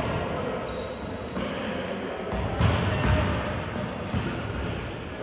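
A basketball being dribbled on an indoor court, with several low thumps of the ball on the floor, most of them around the middle, over a steady background of gym noise.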